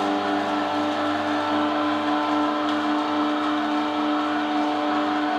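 NUC masticating (low-speed, cold-press) juicer running, its motor and gearbox giving a steady hum with a whine as it drives the auger.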